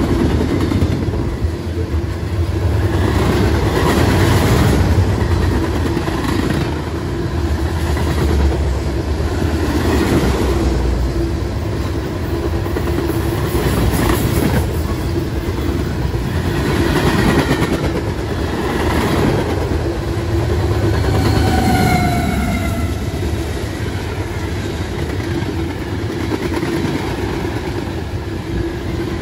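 Freight train of tank cars and covered hoppers rolling past. Its steel wheels clack over the rail joints every couple of seconds over a steady rumble, with a brief high squeal about two-thirds of the way through.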